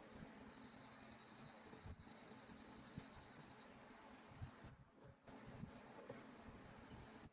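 Near silence: faint background with a steady high-pitched whine or chirring and a few soft, faint knocks.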